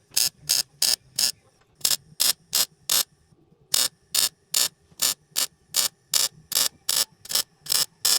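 Stitch-welding a steel patch panel into a rusted-out strut tower: a rapid series of short welding bursts, about three a second, with one brief pause about three seconds in.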